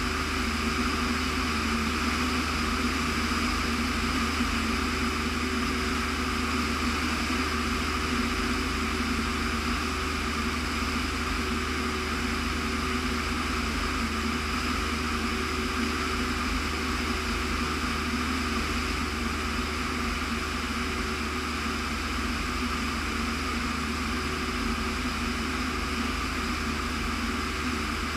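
Light propeller airplane's engine and propeller droning steadily in flight, heard from on board, at an unchanging pitch.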